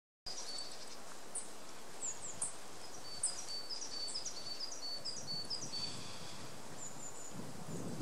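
Small birds calling in a quick stream of short, high chirps over steady outdoor hiss, with a faint rustle near the end.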